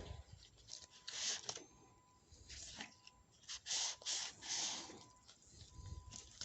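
Irregular short scraping and rustling strokes from hand work on parts, four louder ones standing out.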